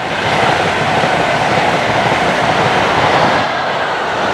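Electric passenger train of Mk3 coaches with a Class 90 locomotive passing close by at speed: a steady rush of wheels on rail that swells in the first half second and then holds.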